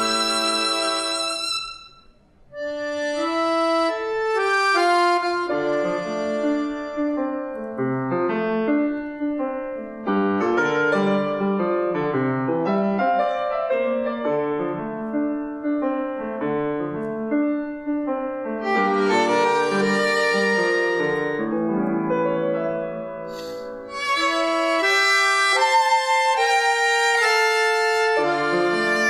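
Violin, piano and accordion trio playing a slow piece. A held violin note fades out about two seconds in, the piano carries the music with the violin silent, and the violin comes back in with the full ensemble, louder, about 24 seconds in.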